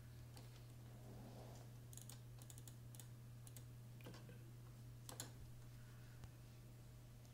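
Near silence: a low steady hum with a scattering of faint clicks, a cluster about two to three and a half seconds in and two more near four and five seconds.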